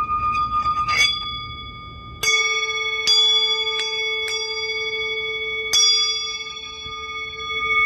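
Bells or chimes struck about six times, each strike leaving clear, overlapping tones ringing on. A held, gently pulsing tone with a low hum sounds under the first strikes and stops about two seconds in.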